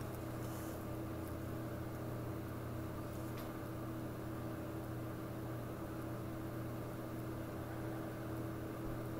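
Steady mechanical hum: a low drone with a fixed higher tone above it, and a faint click about three and a half seconds in.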